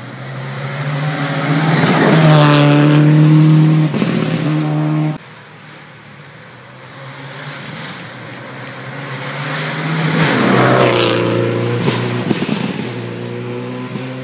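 Two rally cars race past one after another on a gravel stage, engines at high revs. Each pass swells, peaks and drops in pitch as the car goes by. The first pass cuts off suddenly about five seconds in.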